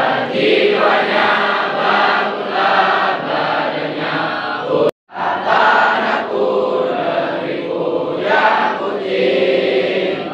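A large crowd of school students singing together in unison. The sound cuts out completely for a moment just under five seconds in, then the singing resumes.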